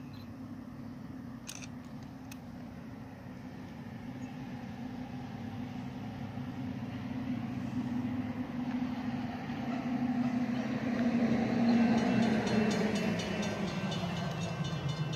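An approaching train, still out of sight: the low drone of its diesel locomotive grows steadily louder, and a thin high whine joins it near the end.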